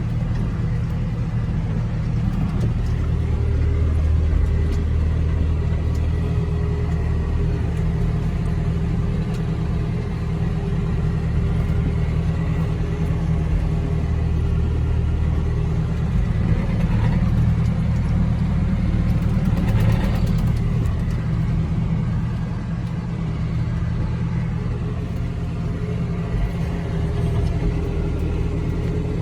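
Farm tractor's engine running steadily as the tractor drives along, a constant low drone.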